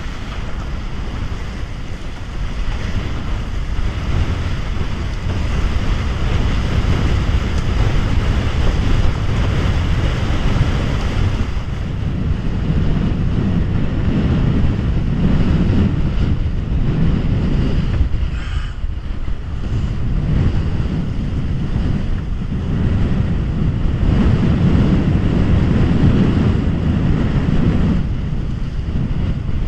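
Wind buffeting the microphone over water rushing and slapping along a Bic Bamba raceboard's hull as it sails fast across choppy water. It is a loud, steady rush that swells and eases in surges.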